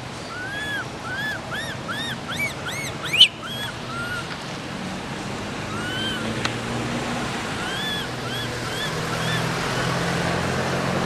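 Baby macaque crying: a quick run of short, arched squeals, about three a second, for the first three seconds or so, then a few more spaced out later. A sharp click just after three seconds, over a steady outdoor hiss.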